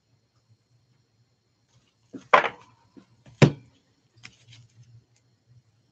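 Stacks of hard plastic card holders being set down on a table: two sharp knocks about a second apart, then a few lighter plastic clicks as the cases are handled.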